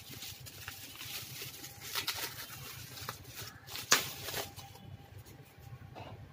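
Bubble wrap crinkling and rustling as it is pulled apart and unwrapped by hand, with a few louder crackles about two and four seconds in.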